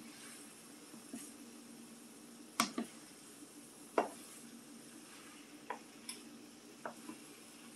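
A cooking utensil knocking against a pan about six times while potatoes cook in it, the loudest knocks a few seconds in and about halfway through. A steady low hum runs underneath.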